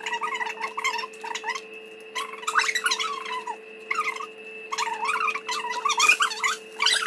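Two women talking across a table, their voices coming and going in short stretches over a steady hum in the room.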